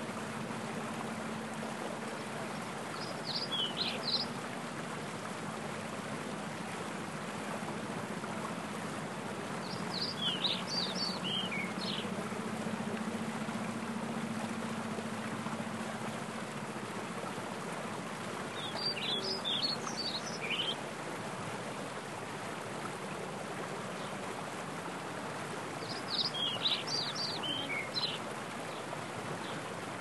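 Mountain stream rushing and splashing over rocks in a steady wash of water noise. A small songbird sings a short phrase of quick high descending notes four times, about every seven to eight seconds.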